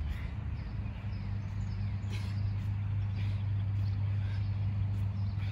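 A steady low engine hum from running machinery, with brief faint high chirps every second or so over it.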